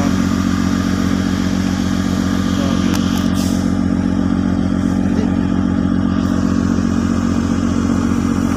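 An engine idling: a loud, steady low drone with a fast, even throb, with a few faint clicks about three seconds in.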